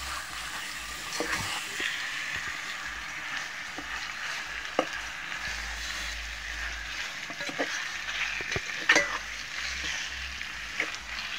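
Chicken pieces sizzling in oil with fried onions, ginger and garlic in an aluminium pot over medium heat, stirred with a metal spoon that scrapes and clinks against the pot. A louder clink comes about nine seconds in.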